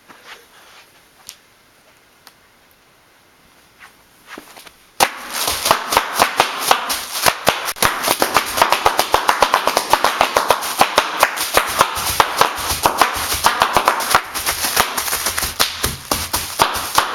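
Bubble wrap being popped: a few single pops, then about five seconds in a sudden run of rapid, dense popping and crackling that keeps going.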